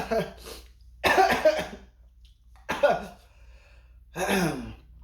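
A man coughing in four separate fits, choking after accidentally inhaling a bit of the fried pork cutlet's skin.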